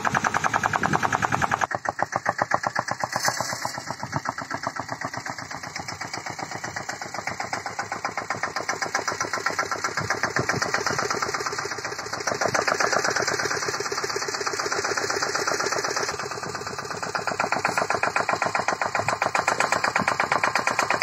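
Engine of a sanedo, a home-built motorcycle-based mini tractor, running under load as it pulls a weeding bar between crop rows, with a rapid, even firing beat. It grows louder late on as the machine comes nearer.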